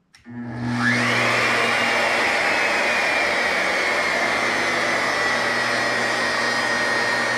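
Porter-Cable variable-speed router switched on with a click, its whine climbing as it spins up in the first second, then easing down slightly and holding steady at its 10,000 RPM setting over a low hum. It runs smoothly, and the owner judges the bearings sound perfect.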